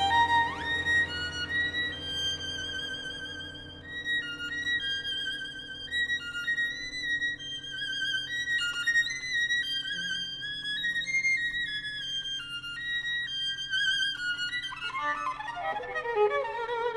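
Background music: a violin playing a slow melody of held notes with vibrato over sustained low notes.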